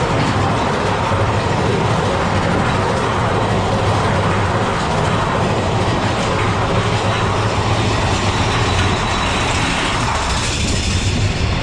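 Big Thunder Mountain Railroad mine-train roller coaster running along its track: a steady, loud rumble and clatter of the train's wheels on the rails.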